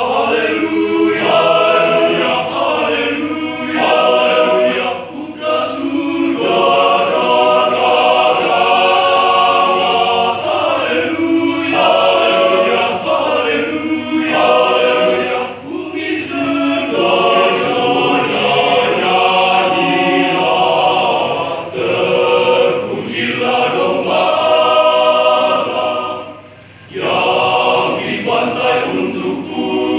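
Men's choir singing unaccompanied, conducted, in long sung phrases with brief breaks for breath between them.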